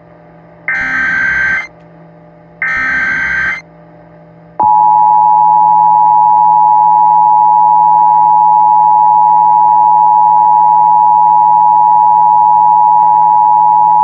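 Emergency Alert System tones: two roughly one-second bursts of the SAME digital header, then, about four and a half seconds in, the steady two-tone EAS attention signal (853 Hz and 960 Hz sounding together).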